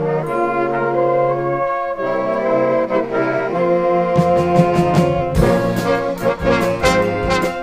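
Fanfare band of brass and saxophones playing held chords; about four seconds in, drums and cymbals come in with a steady beat under the band.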